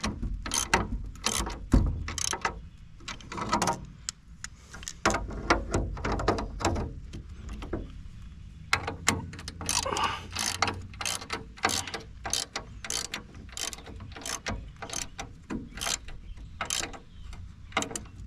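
Ratchet wrench clicking in short runs of strokes as bolts are tightened.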